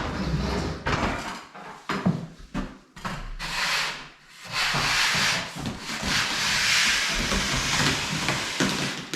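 Popcorn ceiling scraper scraping textured popcorn coating off a ceiling: a few short strokes, then one long continuous scrape from about four and a half seconds in.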